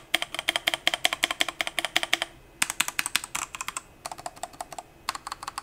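Fast typing on a Machenike K500 compact mechanical keyboard: a rapid, clacky run of keystrokes, about nine a second, broken by short pauses about two and a half seconds in and again near four and five seconds.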